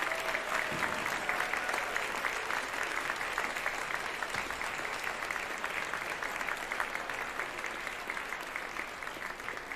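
Audience applause, a dense steady clapping that slowly fades toward the end.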